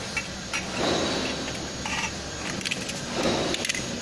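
Thin steel strip and a metal pipe knocking and scraping on a concrete floor: a few sharp metallic clicks, most of them in the second half, and some scuffs over steady workshop background noise.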